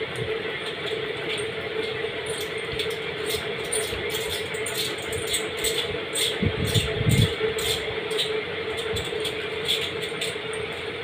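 Close-up eating sounds: chewing with many small, sharp mouth clicks, over a steady background hum. A few low thumps come about six to seven seconds in.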